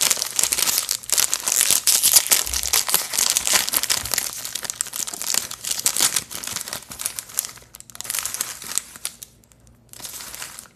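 Plastic snack bag of Cheez-It crackers crinkling loudly as it is opened by hand, easing off after about eight seconds with one more short crinkle near the end.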